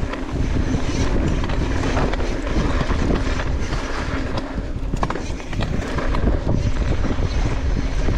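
A bike being ridden over a dirt trail: steady tyre rumble with scattered rattles and knocks, and wind buffeting the microphone.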